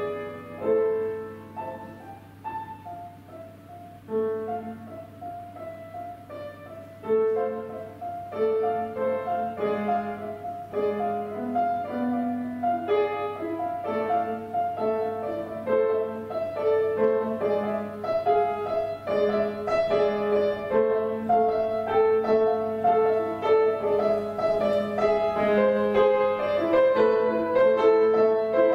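Solo piano accompaniment to a silent film, played live: sparse, quieter notes at first, then busier and louder playing from about seven seconds in.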